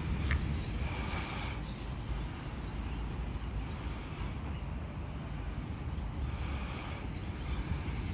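Outdoor ambience dominated by a steady, fluttering low rumble, like wind buffeting the microphone while walking.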